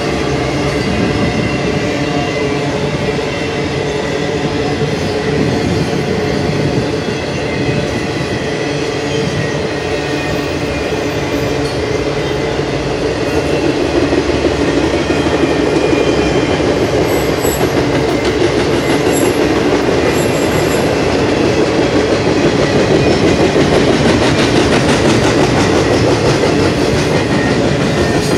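A passing intermodal freight train's cars, loaded with containers and trailers, rolling by close at speed. Their steel wheels make a steady, loud rumble on the rails, growing a little louder about halfway through.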